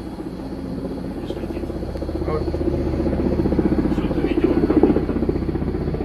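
Firefighting helicopter's rotor beating in a fast, steady rhythm, growing steadily louder as it approaches.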